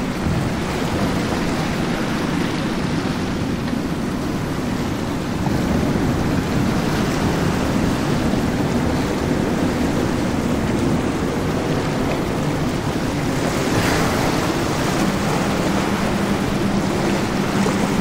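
Midnight Express powerboat running on its outboard engines, mixed with the rush of water from its wake and wind on the microphone. It gets a little louder early on, and a steady engine hum comes up near the end as the boat passes.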